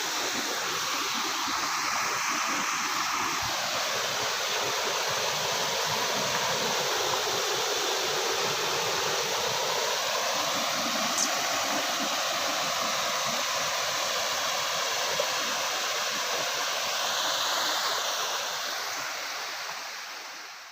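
Waterfall: a steady rush of falling water, fading out over the last two seconds.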